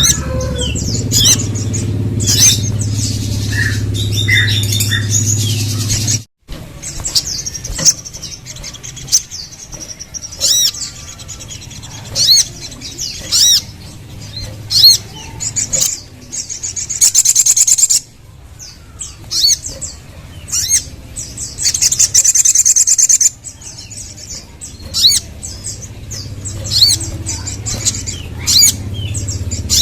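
Crimson sunbird (sogon) calling: quick series of short, high, sharp chirps, with longer buzzy trills around the middle. A low hum lies under the calls at the start and near the end, and the sound breaks off abruptly about six seconds in before the calls resume.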